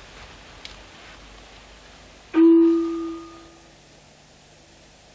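Monastery bell struck once about two seconds in, giving a low ringing tone with a few higher overtones that dies away over a second or so; the bell that regulates the monks' day.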